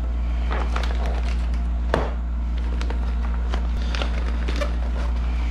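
Clear plastic packaging crinkling and crackling in short bursts as a plastic-bagged knee guard is handled, with one sharper crackle about two seconds in, over a steady low hum.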